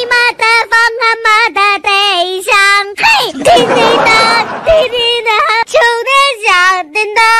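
High, child-like singing voice: a quick string of short sung notes held close to one pitch, with a rougher, breathier stretch in the middle.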